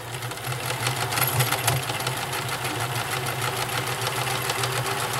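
Vintage all-metal Nelco convertible free-arm sewing machine running, sewing a scallop stitch: a steady motor hum with rapid ticking from the needle strokes, picking up speed over the first second.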